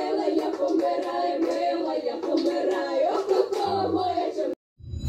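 A group of young women singing a Russian folk song together in harmony without instruments, with hand clapping in time. The singing breaks off suddenly about four and a half seconds in.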